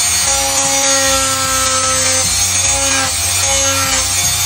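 A steady, continuous hiss of a tool working wood, with background music of held notes underneath.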